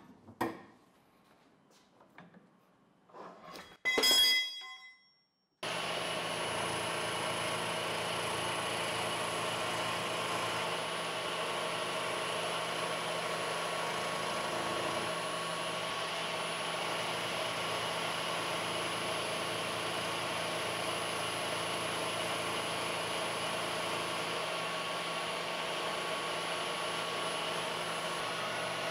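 A ringing metal clink about four seconds in, then a machine tool's motor comes in abruptly and runs steadily with a constant hum and whine.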